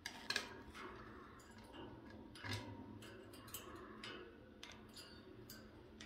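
African grey parrot moving about its metal wire cage, making irregular light metallic clicks and taps, with a slightly heavier knock about halfway through.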